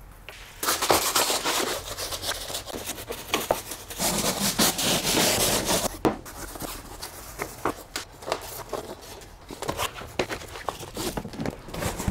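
Metal heat shields and plastic underbody cover pans being scrubbed and wiped down with degreaser: rubbing and scraping with many small clicks, and two longer stretches of loud hiss, one about a second in and one from about four to six seconds in.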